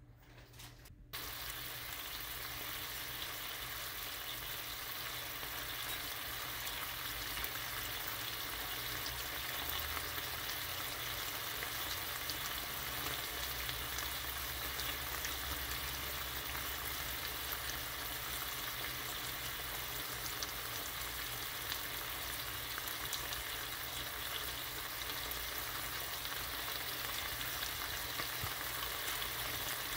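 Strips of bacon sizzling and crackling in a nonstick frying pan over medium heat, a steady dense hiss full of fine pops as the fat renders. It starts suddenly about a second in.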